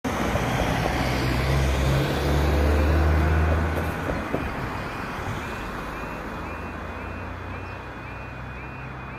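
Level crossing warning alarm starting up as the crossing begins its warning sequence for an approaching train: a high repeating alarm tone, about two a second, from about halfway through. Under it a road vehicle's engine runs loudly through the first four seconds, then eases off.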